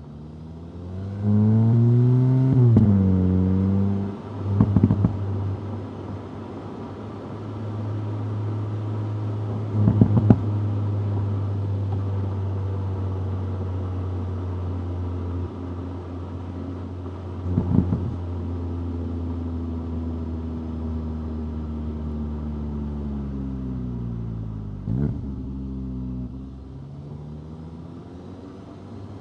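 2025 VW Golf GTI 8.5's stock 2.0-litre turbocharged four-cylinder accelerating, its note rising about a second in, then settling to a steady cruise. Short crackling bursts come at four gear changes, and near the end the note falls away as the car slows.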